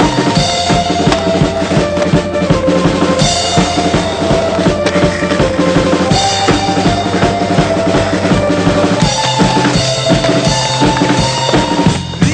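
Soundtrack music led by a drum kit, with a steady kick-and-snare beat under sustained melodic tones.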